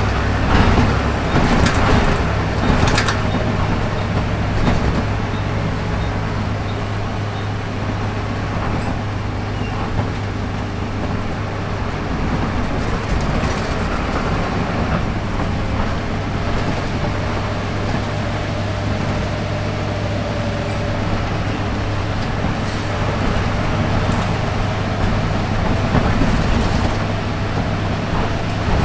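Volvo B7RLE bus heard from inside the saloon on the move: steady engine hum and road noise, with sharp knocks and rattles from the body in the first few seconds and again near the end.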